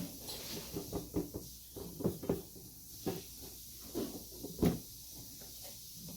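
Irregular knocks, thumps and rustles of parts and packing being handled and lifted out of a cardboard box, the loudest thump about four and a half seconds in.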